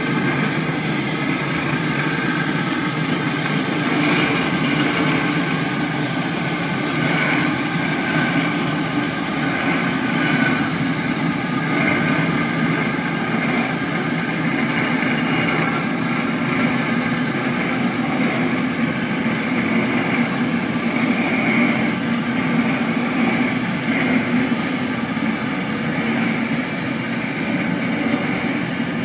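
Tugboat's diesel engine running steadily under power as it works a barge, with its propeller wash churning the water.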